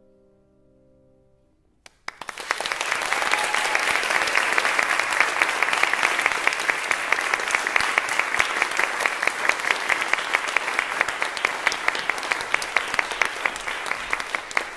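The last chord of a mezzo-soprano and piano song dying away softly, then an audience applauding. The applause starts suddenly about two seconds in.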